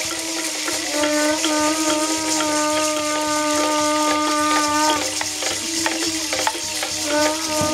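A wind instrument sounding a long held note, steady in pitch, that breaks off about five seconds in and comes back a little lower near the end, over a continuous rattling hiss.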